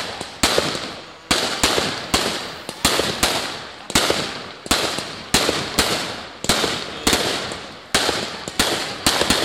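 A firework cake firing aerial shots one after another, a sharp bang a little more often than once a second, each fading away before the next.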